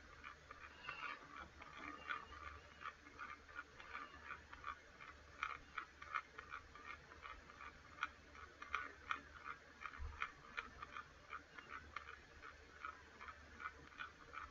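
Faint, rapid, irregular clicking and ticking, several clicks a second, over a low steady hum.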